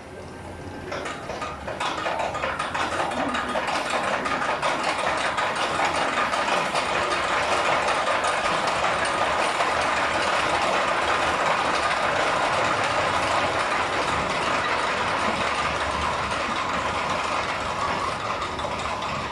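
Roller coaster train running along its track: a steady rattling, clattering rumble that builds over the first couple of seconds and then holds.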